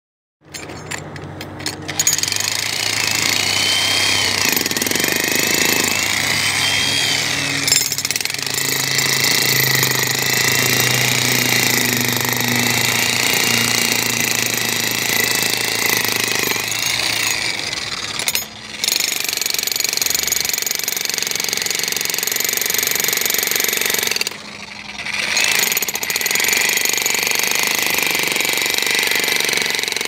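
Generic electric demolition hammer (jackhammer) running continuously, its chisel pounding and breaking up a concrete curb. It builds up over the first couple of seconds, then cuts out briefly twice in the second half before hammering on.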